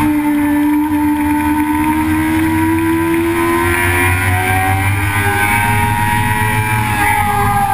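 Engine of a track-day vehicle lapping a race circuit, held at high revs under load, its pitch climbing slowly for several seconds and then dipping slightly near the end, over a steady rush of noise.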